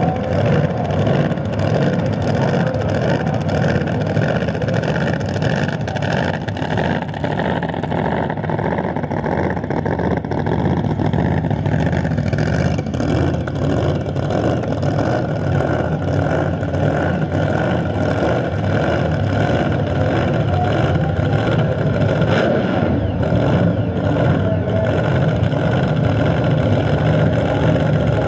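Engines of two 10.5 Outlaw drag-race vehicles, a red pickup and a silver car, running loud and steady at low speed as they pull up to the starting line and stage.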